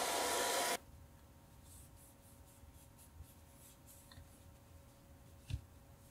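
Handheld heat gun blowing with a steady hiss as it warms the original glue of a calculator faceplate, cutting off abruptly under a second in. Then a cloth rubs faintly over the faceplate, with one soft knock about five and a half seconds in.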